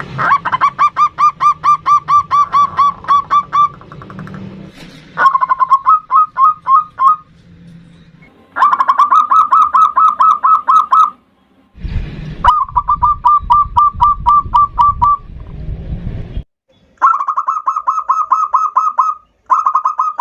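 Zebra dove (perkutut) calling in about six bursts of fast, evenly repeated cooing notes, each burst cut off sharply; the bursts run about seven notes a second. A low hum lies under some of the bursts.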